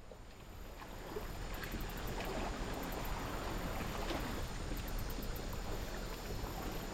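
Steady outdoor noise of wind and river water, fading up over the first two seconds, with a few faint ticks.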